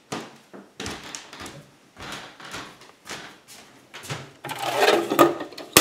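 A series of short rustles and knocks, roughly one a second, that crowd together near the end: things being handled close to the microphone.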